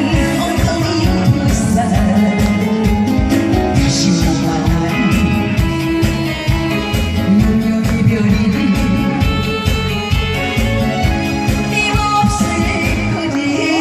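A song performed over a backing track through the stage loudspeakers: sung vocal lines over a band accompaniment with a steady beat.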